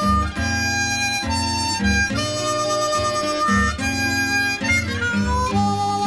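Blues harmonica playing long held notes over a low guitar accompaniment, in an instrumental break between sung verses; one note slides up in pitch about five seconds in.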